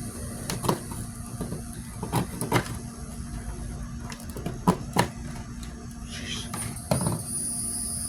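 Scattered sharp knocks and clicks, about six at irregular times, from hands and a tool working at a clay-packed firework shell as it is cut apart, over a steady background hum.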